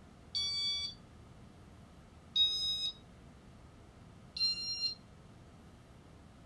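Three short electronic beeps about two seconds apart, each slightly different in pitch: the confirmation tones of a Casablanca Inteli-Touch fan control acknowledging button presses.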